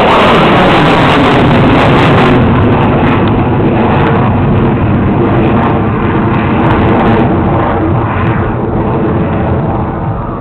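F-16 fighter jet's engine noise, loud and steady at first and easing slightly as the jet climbs away overhead.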